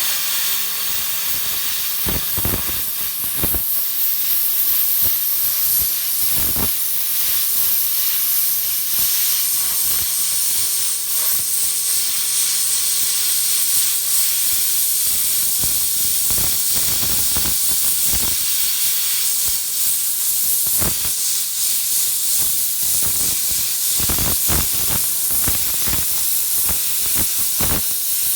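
Compressed-air plasma cutter arc cutting through 15 mm mild steel: a loud steady hiss with irregular crackles. Under it runs the low hum of the machine's internal twin-piston compressor.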